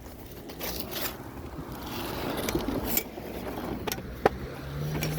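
Vehicle running while driving, a steady low rumble with a few sharp clicks and knocks; one sharp click comes a little over four seconds in.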